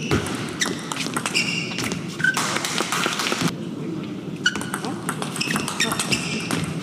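Table tennis rallies: the plastic ball clicks in quick sequence off the bats and table, pauses briefly between points about halfway through, then starts again. Short squeaks from the players' shoes on the court floor come in between the hits, over a steady murmur from the hall.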